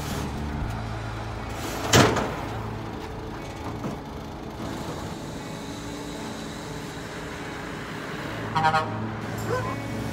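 A truck engine idles steadily underneath. About two seconds in there is one loud metallic clank as a flatbed tow truck's steel loading ramp is pulled out and set down. Near the end comes a short, horn-like toot.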